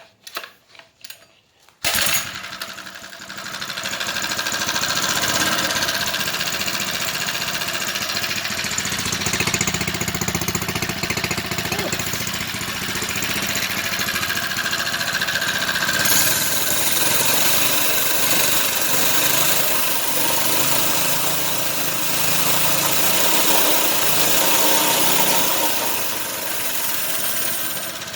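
Small four-stroke motorized-bicycle engine starting up about two seconds in and then running steadily through a homemade stainless-steel exhaust on its first start.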